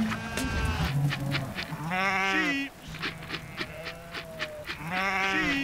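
Sheep bleating: two loud, drawn-out bleats, one about two seconds in and one near the end, with fainter bleats from the flock between them.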